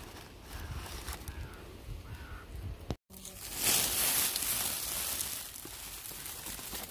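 Rustling and handling noise among bottle gourd vines and leaves, loudest from a little after an abrupt break about three seconds in. Faint bird chirps can be heard before the break.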